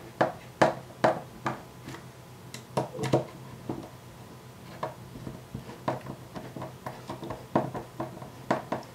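Small screwdriver driving in the bottom-cover screws of an Intel NUC mini PC: a string of sharp little clicks, a few a second. They are loudest in the first second and a half, fewer in the middle, and come quicker again from about five seconds in.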